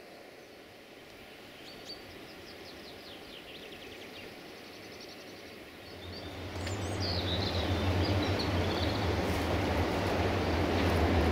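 Diesel train approaching, its low engine hum and running noise growing steadily louder from about halfway in. Birds chirp in the quiet before it arrives.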